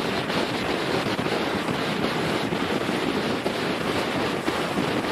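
Steady rushing wind noise on the camcorder microphone aboard a boat, mixed with the sound of water.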